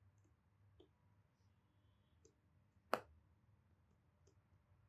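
Near silence with faint ticks of a stylus pen on a tablet's glass screen during handwriting, and one sharper click about three seconds in.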